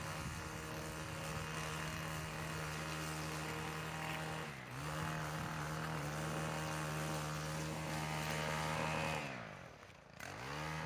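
Gas string trimmer engine running at high throttle as it cuts grass low. The pitch dips briefly about halfway through, then drops away almost to idle near the end before revving back up.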